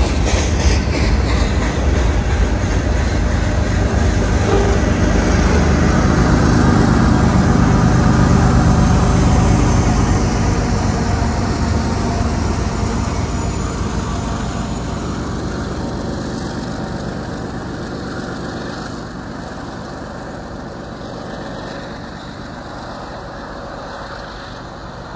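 Freight train rolling past, its wheels running on the rails, with a Union Pacific diesel locomotive's engine passing close and loudest about a third of the way in. The sound then fades steadily as the train moves away.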